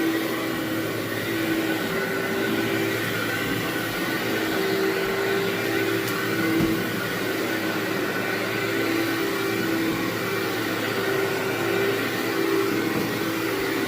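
Vacuum cleaner running steadily on carpet, its motor tone shifting slightly up and down every second or two.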